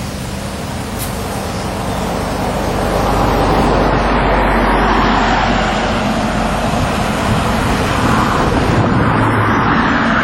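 Motor vehicle engine running steadily outdoors, with a rushing noise that builds about three seconds in and then holds.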